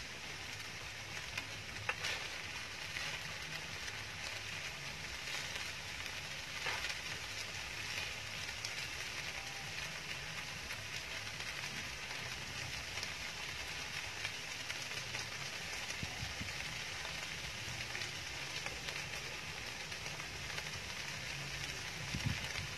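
Chicken samgyeopsal and kimchi fried rice sizzling steadily on a grill pan over a portable gas stove, with a few light clicks.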